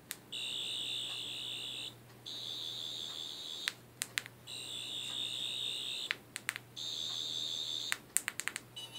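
A homemade sonic screwdriver prop's electronic sound effect: a high, warbling buzzer-like whine that plays four times, each about a second and a half long. Sharp button clicks come between the tones, with a quick run of clicks near the end.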